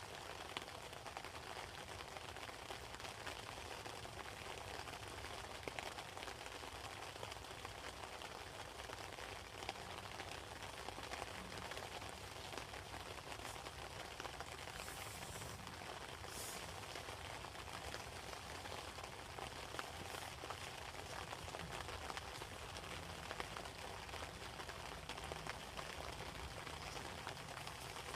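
Steady hiss and rush of water, with a few faint ticks and taps.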